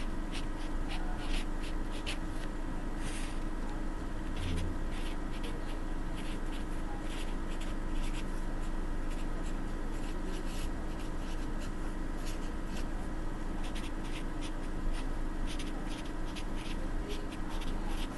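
Felt-tip marker writing on paper: a quick, irregular run of short strokes, over a steady low hum.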